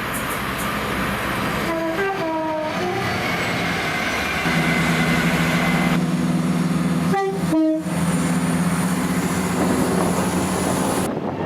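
Train approaching and passing with a steady rumble, sounding its two-tone horn briefly about two seconds in and again, shorter, about seven seconds in. A steady low drone runs under the passing train from about four seconds in.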